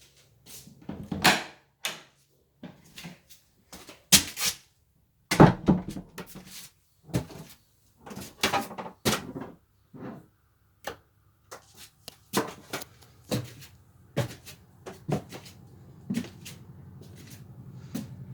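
Irregular knocks, clunks and scrapes of a vintage smoke alarm being handled and worked loose from its mounting, the loudest knocks about a second in and again around four to five seconds in. A low steady hum comes up near the end.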